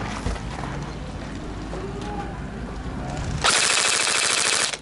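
Tokyo Marui HK416D electric airsoft rifle (AEG) firing one full-auto burst of about a second and a half near the end: a fast, even buzzing rattle from the gearbox cycling that starts and stops abruptly. Before the burst there is only faint background.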